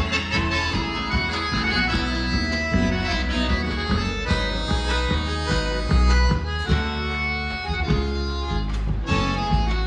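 Instrumental passage of southern Brazilian native (gaúcho) music played live: a piano accordion carries the melody over acoustic guitars, with a steady bass line underneath.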